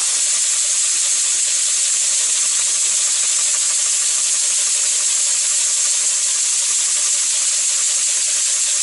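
Scratch-built model diagonal paddle steamer engine running fast with a steady, loud hiss, its paddle wheels spinning. The builder says it is not yet running right.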